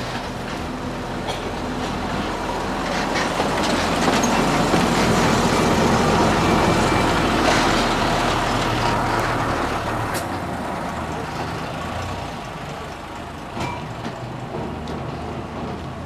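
Hokuriku Works AFT-02 small diesel locomotive running as it rolls past on narrow-gauge track, its engine growing louder as it comes close near the middle and easing off as it moves away.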